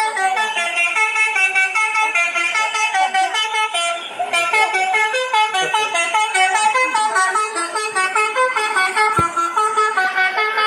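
Telolet bus horn, a multi-tone musical horn, playing a fast melody of short notes stepping up and down, on and on.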